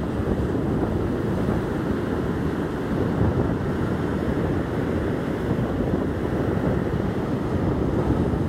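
Steady wind buffeting the microphone by the sea, a continuous rumbling noise with no distinct events.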